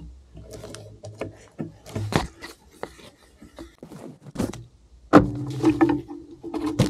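Twigs and brush cracking and scraping, with dry leaves crunching, as someone moves through thick woods, with a loud sharp knock about five seconds in and another crack near the end.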